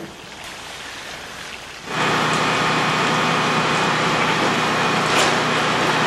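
A steady spray of liquid pattering down like heavy rain starts suddenly about two seconds in, loud and even, after a quieter hiss.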